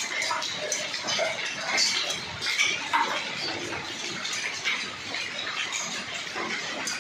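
Hail falling: a dense, irregular patter of small hard clicks and hits over a steady hiss.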